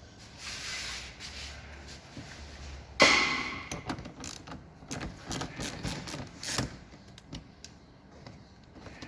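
Mechanical handling noise: a sharp knock about three seconds in, followed by a few seconds of irregular clicks and clatter, as of car parts and covers being moved and knocked.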